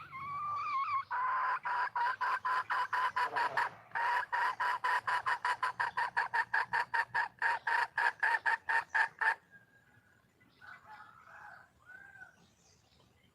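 Red junglefowl hen cackling, a hen's call to a male. An opening note runs into a fast, even run of short clucks, about five a second, which stops about nine seconds in and is followed by a few softer notes.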